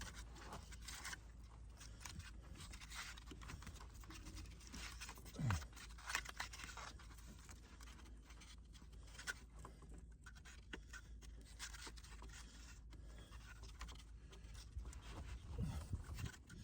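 Irregular scraping, scratching and rustling of hands and tools working on plastic PEX water pipe in a cramped crawl space, with a short low sound about five and a half seconds in.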